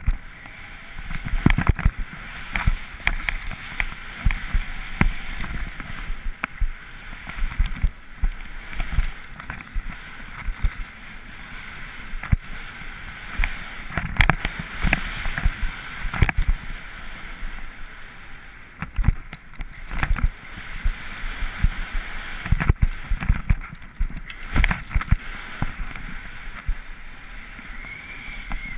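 Skis hissing and scraping over snow on a downhill run, with irregular knocks and low rumbling thumps from the ride jolting the camera.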